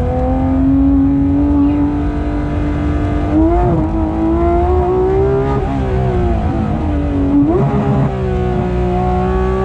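Porsche 991.2 GT3 RS's naturally aspirated flat-six engine on a track lap, its pitch climbing slowly under steady throttle. The note jumps and wavers twice, about a third of the way in and again about three quarters in, as gears change. A constant low rumble of road noise runs underneath.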